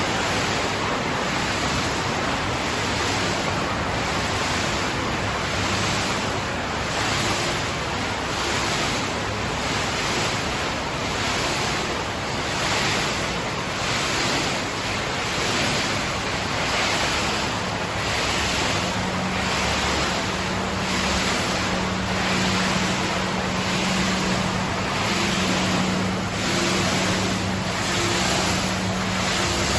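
PET bottle washing line running wet: a steady rush of water and machinery that swells about once a second, like a rotating washer churning. A low hum comes in about two-thirds of the way through.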